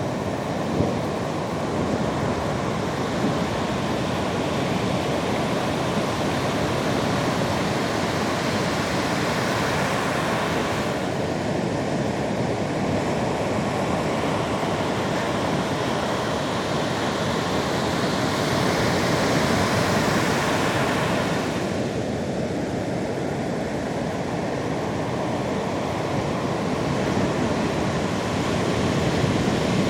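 Sea waves surging and breaking on the shore, a steady rushing wash that swells louder twice, about a third of the way in and again past the middle.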